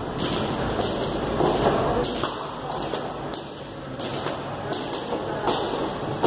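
Heavy battle ropes slapping against a tiled floor as they are whipped in waves, a steady rhythm of about two slaps a second.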